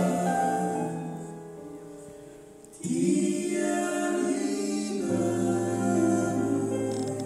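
Live band music: male voices singing slow, held harmonies over sustained chords. The sound dies away over the first few seconds, a new held chord comes in suddenly about three seconds in, and a low bass note joins about five seconds in.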